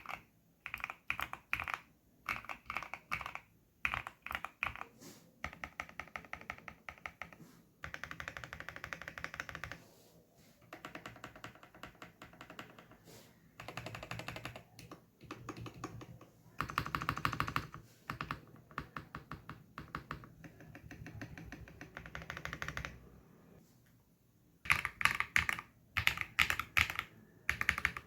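Rapid typing on a Neo 80 custom mechanical keyboard with linear switches: runs of fast keystrokes in bursts, broken by short pauses. Near the end the strokes come louder and sharper.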